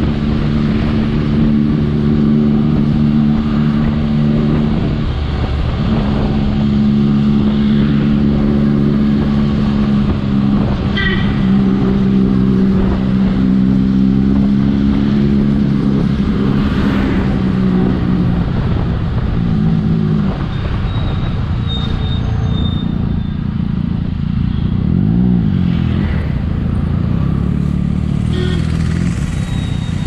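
Motorcycle engines running at low road speed in traffic, a steady engine note that shifts in pitch with the throttle, over road noise. Near 25 s the pitch wavers briefly.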